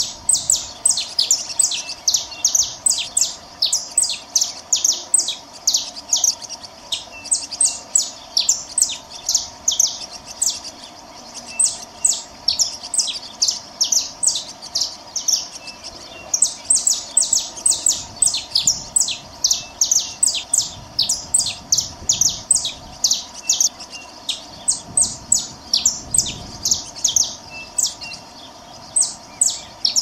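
Saffron finches calling: runs of short, high chirps, several a second, broken by brief pauses.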